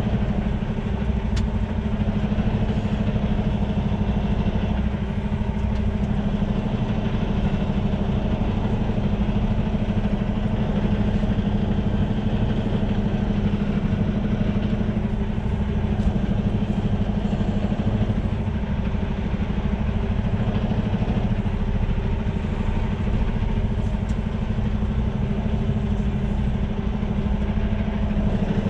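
Semi truck's diesel engine running at a steady low idle, heard from inside the cab, an even drone with no revving.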